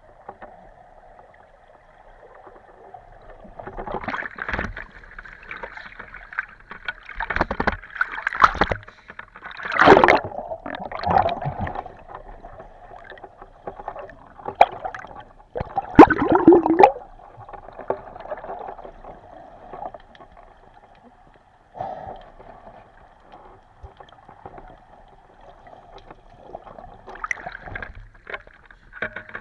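Water sloshing and gurgling in irregular bursts, with sharp knocks mixed in. The loudest surges come about ten and sixteen seconds in.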